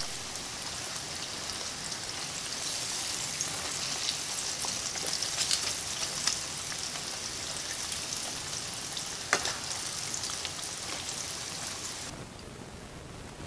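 Battered chicken pieces deep-frying in hot oil: a steady sizzle with many small crackles and a few sharper pops in the middle. The sizzle drops down near the end.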